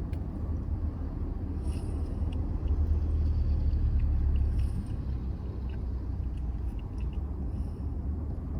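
Low, steady rumble inside a car cabin, swelling for a couple of seconds near the middle, with a few faint ticks.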